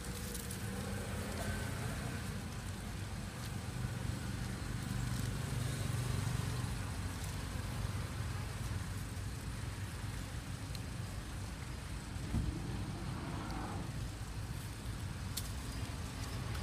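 Steady low rumble of outdoor background noise, even throughout, with a few faint ticks.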